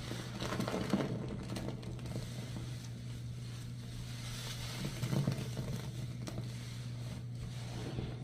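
A soapy sponge squeezed and worked by hand, making crackly, crunchy squishing in irregular surges, loudest about a second in and again around five seconds. A steady low hum runs underneath.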